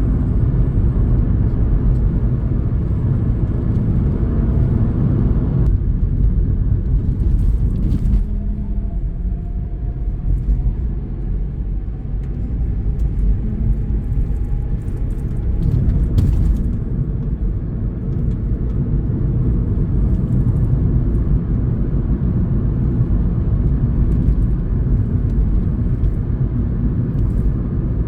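Vehicle driving along a road, heard from inside: a steady low rumble of road and engine noise. It eases off and dulls for a while in the middle, with a faint rising whine, then builds back up.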